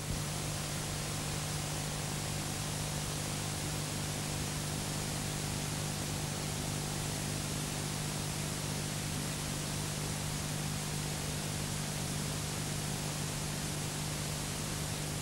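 Steady hiss with a constant low hum, the noise floor of an old analogue video-tape recording, with no commentary heard.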